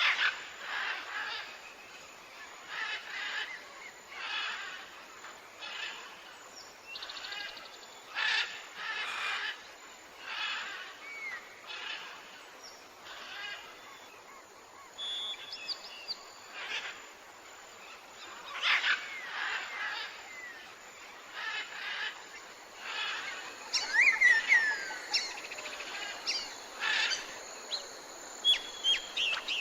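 Birds calling outdoors: a harsh, buzzy note repeats about once a second throughout, and quick gliding chirps and whistles cluster about two-thirds of the way through.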